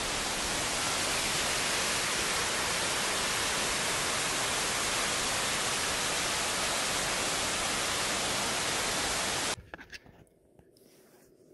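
Steady, even roar of falling water from a waterfall, which cuts off abruptly about nine and a half seconds in, leaving only a few faint clicks.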